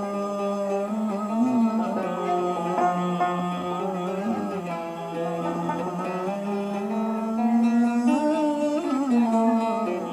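Live Algerian music between sung verses: plucked string instruments play an ornamented melody with pitch slides over a sustained low note.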